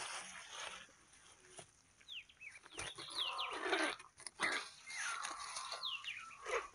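Small birds chirping in quick, falling notes, repeated several times, over rustling and the flutter of a shot dove's wings.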